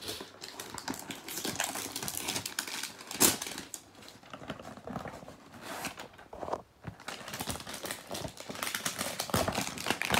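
Cardboard shampoo box and its packaging being handled and pulled open: irregular crinkling and rustling with scattered clicks, and one sharper click about three seconds in.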